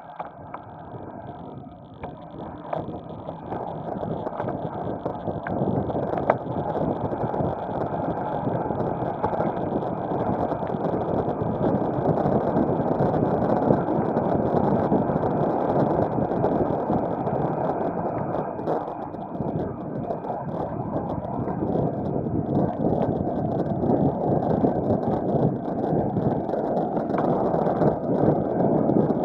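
Wind rushing over the microphone on a downhill bicycle ride, a steady noise that grows louder over the first few seconds and then holds.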